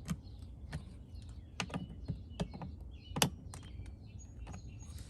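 Irregular clicks and taps of a screwdriver and the outlet's cover being worked as the new GFCI outlet is tightened up, with one louder knock about three seconds in.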